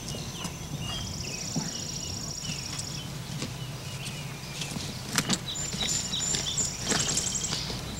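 Outdoor background of insects trilling steadily at a high pitch, with faint bird chirps over a low hum. A few short knocks and rustles come about five and seven seconds in, as a bag is packed in a car.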